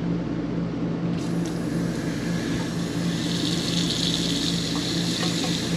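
Water starts running from an RV kitchen faucet into a stainless steel sink about a second in, over the steady hum of the RV's 12-volt water pump. The flow is flushing air out of the newly installed water filter and the lines.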